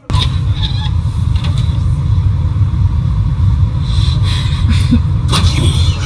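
Steady low rumble of an idling car, heard from inside the cabin.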